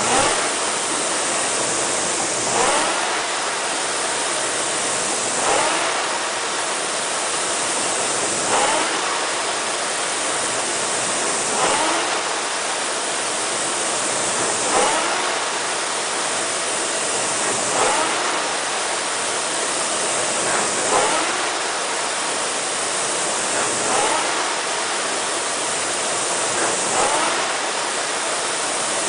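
Concept2 rowing machine's air-resistance flywheel fan spinning with a steady whoosh, surging and rising in pitch with each drive stroke, about once every three seconds, at a stroke rate of 20.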